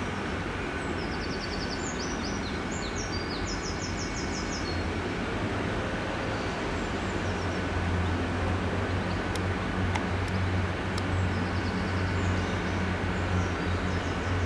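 Train's diesel engine running steadily with a low hum that gets a little louder about halfway through. A bird gives quick trilling chirps in the first few seconds, and there are a few faint clicks later on.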